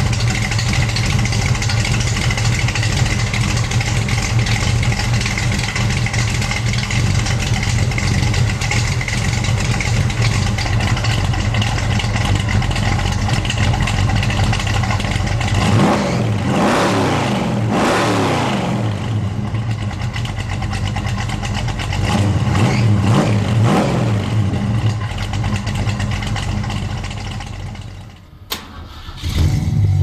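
1967 Ford Mustang GT's V8 idling steadily, then revved up and let fall back about halfway through, followed by a few shorter blips of the throttle; the engine sound fades away near the end.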